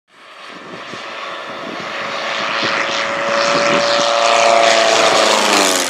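Engine and propeller of a radio-controlled aerobatic model airplane making a low pass: a steady droning tone grows louder over several seconds, then drops in pitch as the plane goes by near the end.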